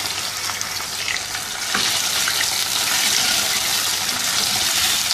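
Raw chicken pieces sizzling in hot oil with cumin and fenugreek seeds in a wok, stirred with a spatula; a steady hiss with small crackles, getting a little louder about two seconds in.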